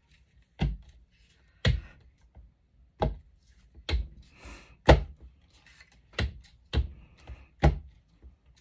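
About eight separate sharp taps and thunks on a hard craft work surface, roughly once a second, with faint handling noise between them.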